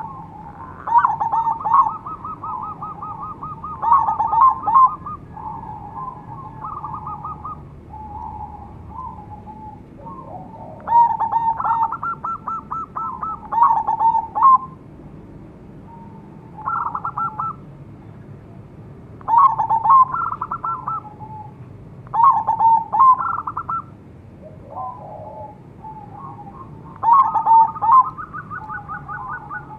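Crossbred zebra dove (perkutut) cooing: about nine loud rolling coo phrases come every few seconds, each a quick run of notes. Quieter coos sit between them.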